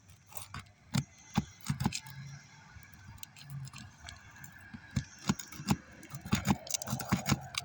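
Metal roof snake (shingle removal bar) worked under asphalt shingles, giving irregular sharp clicks, taps and scrapes as it probes for the nails, with the clicks coming thicker near the end.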